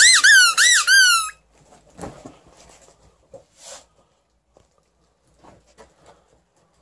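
Rubber squeaker inside a tennis-ball-felt toy football squeezed repeatedly by hand: a quick run of high squeaks, each rising then falling in pitch, about four a second, stopping about a second and a half in. A soft thump and light rustling follow.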